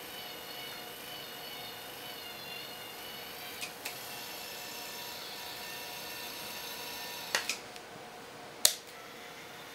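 Small electric motors and gear drives of a scale-model Talos missile launcher whining steadily as its automatic loader pulls the missile back into the magazine and closes the loading door. A few light clicks come about four seconds in and again a little after seven seconds, and one sharp, louder click near the end.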